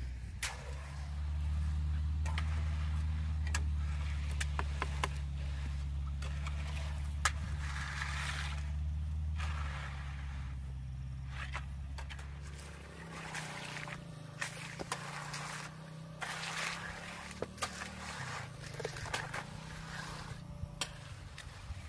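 Engine running steadily, its hum dropping and changing note about 13 seconds in, with scattered knocks and scraping over it.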